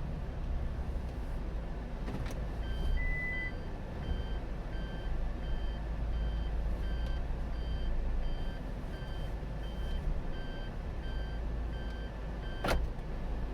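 Suzuki Every Wagon DA17W's turbocharged 660 cc three-cylinder engine and road noise heard from inside the cabin while driving, a steady low rumble. A repeating electronic beep joins about three seconds in, and a sharp click comes near the end. The owner reports a karakara, garagara rattle from the van at around 3000 rpm.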